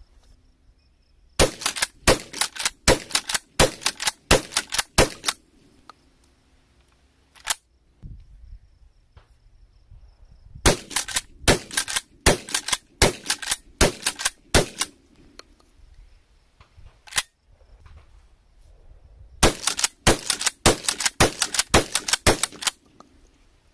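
Hatsan Escort Slugger 12-gauge pump shotgun fired in three quick strings of shots. Each shot is followed by the clack of the pump action being racked, cycling shells from a magazine tube fitted with a new Delrin follower and spring.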